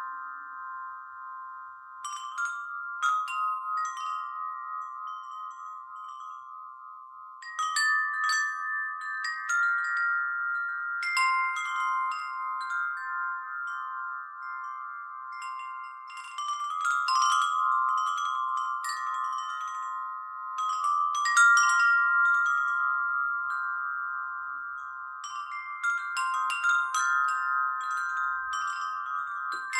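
Metal wind chimes ringing in irregular clusters of strikes every few seconds, several high tones overlapping and ringing on between strikes.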